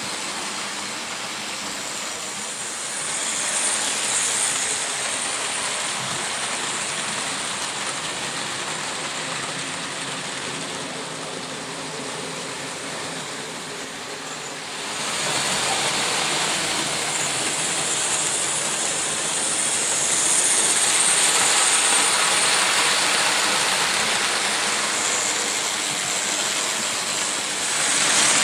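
Märklin model trains running on the layout's track: a steady rolling rattle of metal wheels on rails and the locomotives' motors, getting louder about halfway through.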